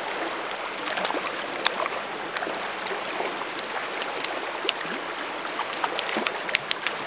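Shallow creek flowing steadily around a wading angler, with a hooked trout splashing at the surface. A run of short, sharp splashes comes near the end as the fish is scooped into a landing net.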